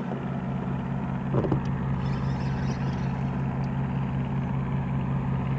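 Small boat's motor running steadily with a low, even hum.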